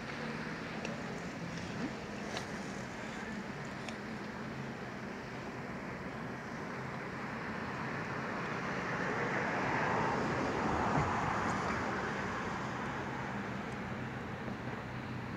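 Boat engine running steadily with a low hum under the rush of water and air on open sea; the rushing swells louder about two-thirds of the way in, then eases.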